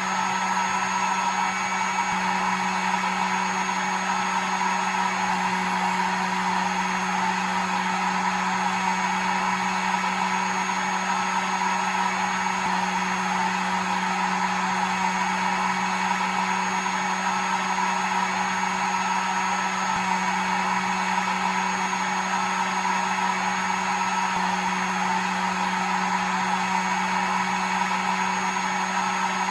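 Hair dryer running steadily: an even rush of air over a constant motor hum, with a thin high whine on top.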